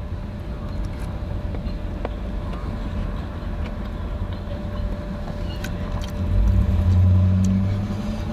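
Steady low rumble of road traffic, with one vehicle passing about six seconds in, louder and humming for a second or two before fading. Faint clicks of chopsticks against a bowl during eating.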